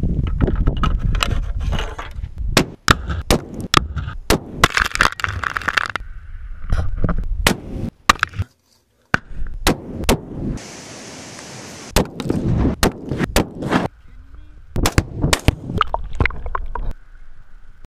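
Gunshots edited together in quick succession, a dozen or more sharp reports from high-powered rifles. There is a brief drop to silence about eight and a half seconds in, and a steady hiss for a second or so around eleven seconds.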